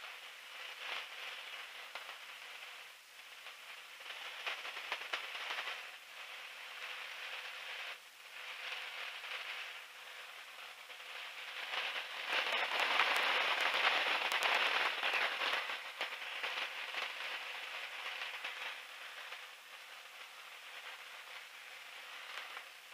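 Wind rushing and buffeting over the microphone in an open biplane cockpit in flight: a gusty, crackling hiss that rises and falls, swelling loudest about halfway through.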